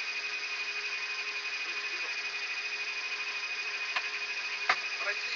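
Cockpit voice recorder background in a Yak-42D with engines running on the ground: a steady hiss with a low hum and a high whine, and two clicks near the end, the second louder.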